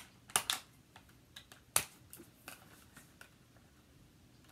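Small scissors snipping through the cords that tie a doll into its packaging: a handful of short, sharp snips, the loudest a little under two seconds in.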